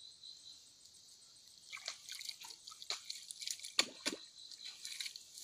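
Hands splashing and squelching in shallow muddy water, a run of small splashes and drips beginning about two seconds in, loudest around four seconds. A steady chirr of insects sits behind it.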